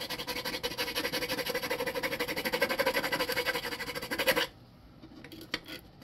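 A small power tool cutting into the fiberglass hull to open the hole for a water-cooling exit: a fast, even chatter over a steady motor tone that stops abruptly about four and a half seconds in.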